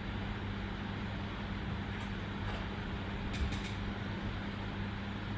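Steady low hum over an even hiss: room and recording noise. A few faint clicks come about two seconds in and again a little later.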